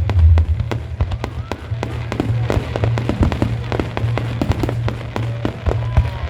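Fireworks bursting in quick, irregular bangs and crackles, over loud music with a heavy bass.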